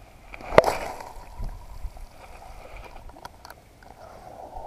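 A single sharp splash on the water surface about half a second in. Light water sounds and a couple of faint clicks follow.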